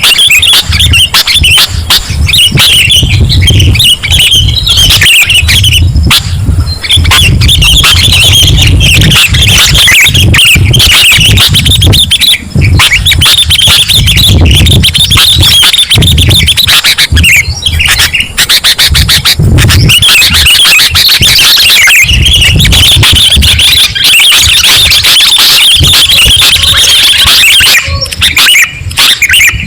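Sooty-headed bulbul (kutilang) calling and chattering loudly and almost without pause, a lure recording of the bird's song.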